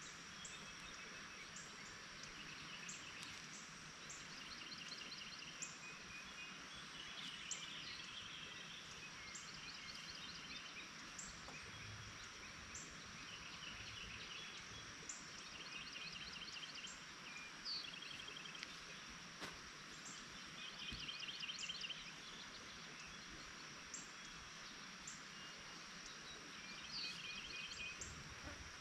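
Outdoor ambience of small birds repeating short trilled songs again and again, over a steady high insect drone, all faint.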